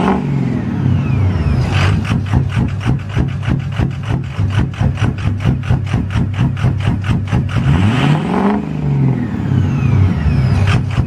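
An engine running with a fast, even beat. Its pitch rises and falls twice, just around the start and again about eight seconds in.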